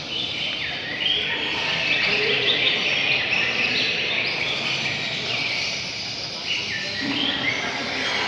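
Several caged songbirds singing at once, a dense run of overlapping chirps and short phrases.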